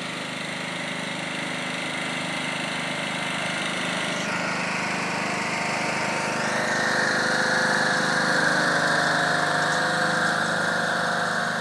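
Riding lawn tractor's engine running steadily while it tows a lawn dethatcher, growing louder as it drives up close.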